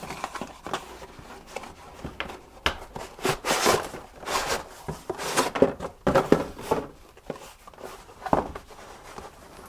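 A cardboard retail box being opened and its contents handled: irregular rustling, sliding and scraping of cardboard and packing, with a few sharper taps.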